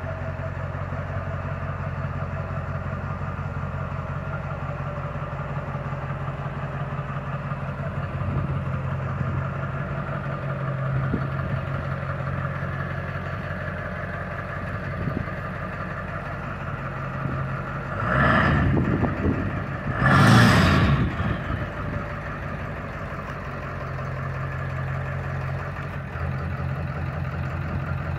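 A 7.3 PowerStroke V8 turbodiesel fitted with a Holset HX50 turbocharger idles steadily. About two-thirds of the way through there are two short, loud rushes of sound about two seconds apart, and then the idle settles back.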